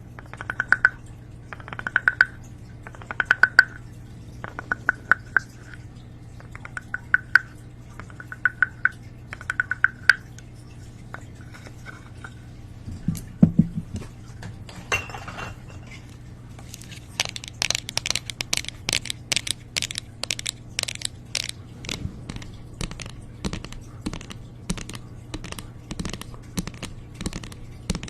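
ASMR trigger sounds made close to the microphone: rhythmic scratchy strokes, about one every second and a bit, then after a short pause a run of quick, crisp crackling taps.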